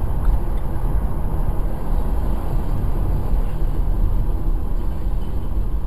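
Steady road noise of a car driving at highway speed, engine and tyre rumble heard from inside the cabin.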